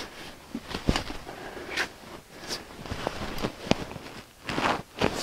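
Metal conduit being bent in a hand conduit bender, jerked down by the handle: scattered sharp clicks and knocks, with a couple of louder knocks, among scuffing and rustling.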